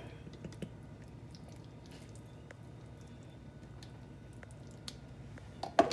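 Faint soft squishing of fingers spreading ketchup over a raw ground-beef meatloaf, with small scattered ticks over a low steady hum. A short, louder sound comes just before the end.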